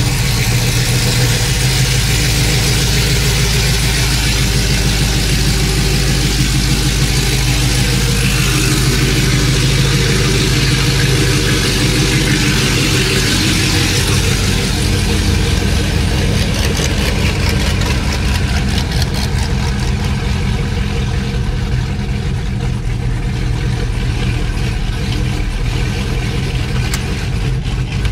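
Cammed 5.3-litre V8 of a Chevy Silverado idling loudly through long-tube headers with the exhaust left open and no mufflers, its idle choppy from the cam.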